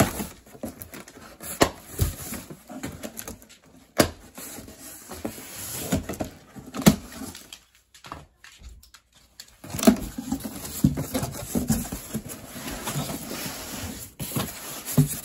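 Cardboard shipping box being opened and handled: scattered sharp clicks and knocks with rustling of packaging, a short lull about eight seconds in, then more rustling.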